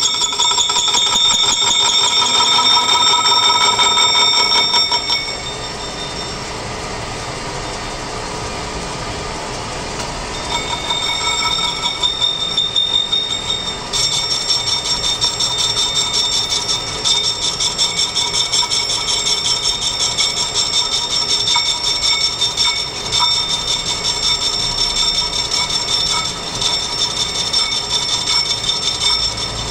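Metal lathe turning a steel bearing cup, the cutting tool scraping across the spinning face with a high, ringing squeal and a fast flutter. The ringing fades for a few seconds about a fifth of the way in, then comes back and holds.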